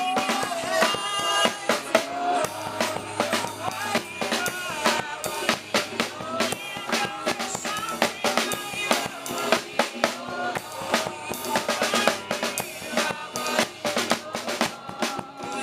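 Gospel band music driven by a busy drum kit, with quick bass drum and snare hits over held low notes.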